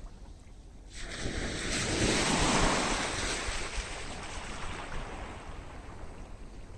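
A sea wave breaks on the beach about a second in: a rush of surf that swells, peaks and then slowly fades as it washes out. A low wind rumble on the microphone sits underneath.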